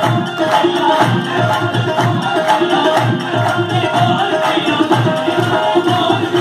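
Qawwali music: harmonium melody over a fast, steady dholak rhythm.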